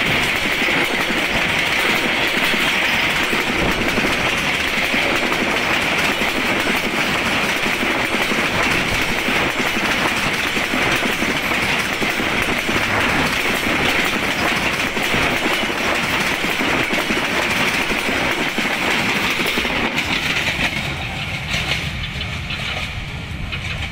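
An intercity passenger train running past at speed, its wheels clattering over the rail joints with a steady rushing noise. The sound eases off a few seconds before the end.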